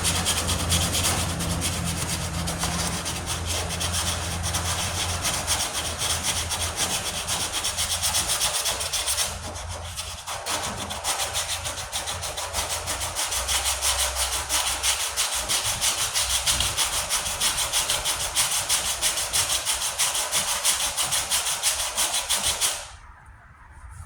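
Coarse 40-grit sandpaper rasping back and forth over primer and body filler on a steel truck tailgate, in fast, steady strokes. It stops briefly about ten seconds in, then resumes and stops suddenly about a second before the end.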